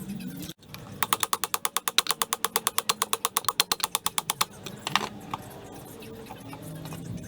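Rapid, even mechanical clicking like a ratchet, about ten clicks a second for roughly three and a half seconds, then a single click about five seconds in.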